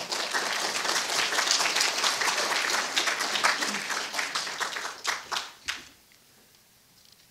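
Audience applauding: dense clapping that thins to a few last claps and dies away about six seconds in.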